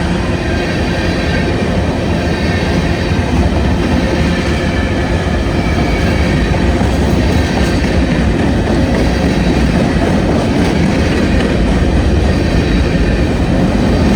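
Union Pacific freight train's cars rolling past: a steady, loud rumble of steel wheels on rail with clickety-clack and a faint high squeal of wheels.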